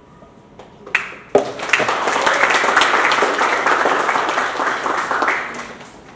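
Audience applauding: a few scattered claps, then dense clapping for about four seconds that dies away near the end.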